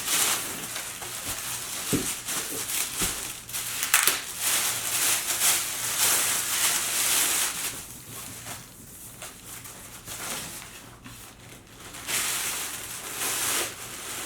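Packaging rustling and crinkling in bursts as speakers are unpacked from their box, with a couple of sharp knocks about two and four seconds in.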